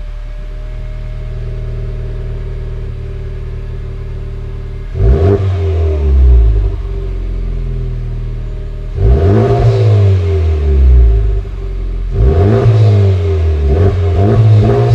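Honda Civic Type R FK8's turbocharged 2.0-litre four-cylinder idling steadily through its exhaust, then free-revved in place several times from about five seconds in, each rev rising and dropping back toward idle.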